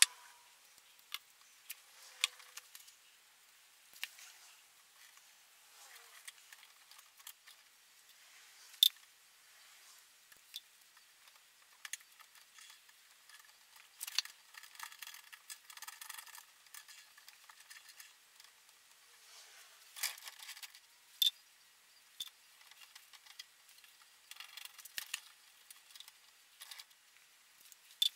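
Metal C-clamps being handled and screwed down over wooden cauls: scattered sharp clicks, clinks and knocks of metal on metal and wood, with a few short stretches of rustling and scraping.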